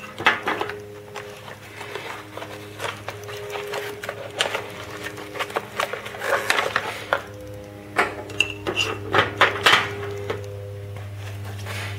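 Packaging of an LED bulb kit being handled and opened: a run of sharp clicks, taps and rustles of plastic and cardboard, busiest about six to ten seconds in, over steady background music.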